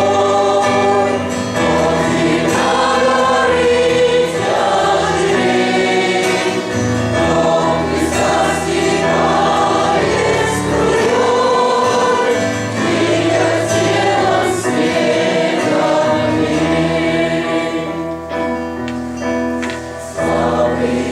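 Church choir singing a hymn with accompaniment, sustained sung phrases over a steady bass line.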